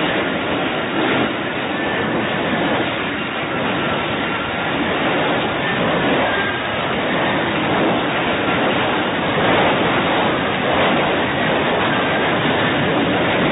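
F-35B jet engine and lift fan in a hover, a loud, steady jet noise with a faint high whine coming and going over it.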